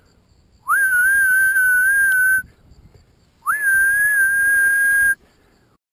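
A person whistling two long, loud notes, each sliding up at the start and then held steady.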